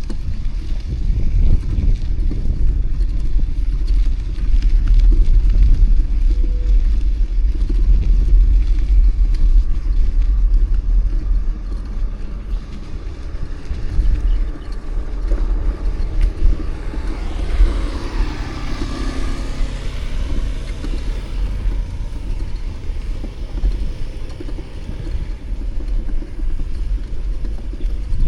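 City street traffic heard from a moving bicycle, under a steady low rumble of wind on the microphone. A vehicle passes close by about two-thirds of the way through.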